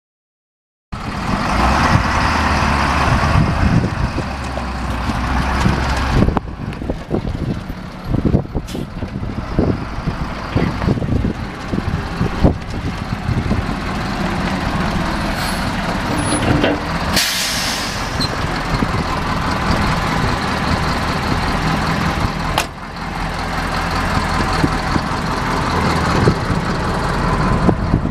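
Detroit Diesel 8.2 L V8 turbo diesel of a 1990 GMC TopKick 7000 truck running steadily, starting about a second in, with scattered knocks and a brief air-brake hiss about two-thirds of the way through.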